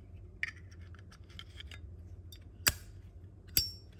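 Brass Zippo lighter being handled: small clicks and scrapes, then two sharp metallic clicks near the end, the last with a brief ring, as the hinged lid snaps and the wheel is worked. The lighter has no flint fitted yet.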